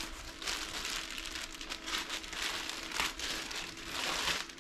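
Packaging being handled and unwrapped: irregular crinkling and rustling.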